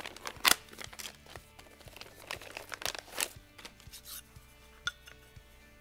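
Hard G10 grip panels clicking and tapping against each other and a wooden workbench as they are handled and set down, with a louder tap about half a second in. Soft background music underneath.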